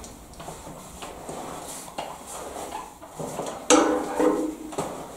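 A radiator roller knocking and scraping against a steel panel radiator as it is worked down behind it. A loud metallic clang with a short ring comes about three and a half seconds in, followed by a couple of lighter knocks, with soft rustling of paper before.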